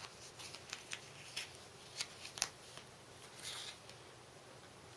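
Faint handling noises of small paper stickers and plastic packaging from a screen protector kit: a few sharp light ticks and a soft rustle about three and a half seconds in.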